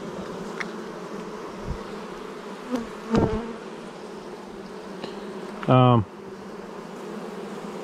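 Honeybee colony buzzing steadily around frames of comb lifted from an opened swarm trap; the colony is fairly well behaved. A few short, louder sounds break through, the loudest just before six seconds in.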